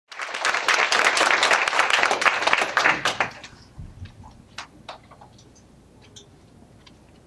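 Audience applauding, the clapping fading out about three seconds in, followed by a few faint scattered clicks.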